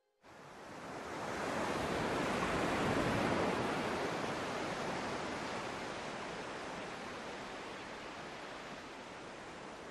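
Rushing noise of sea surf, starting suddenly, swelling over about three seconds and then slowly fading.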